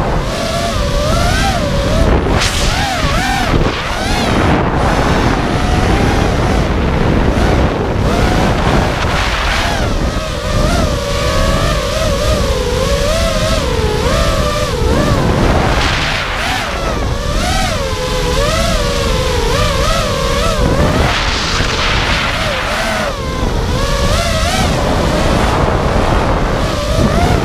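FPV racing quadcopter's brushless motors (T-Motor F40 2400KV) driving 5-inch three-blade props, whining in a pitch that rises and falls with the throttle. The whine sits over a heavy low rumble.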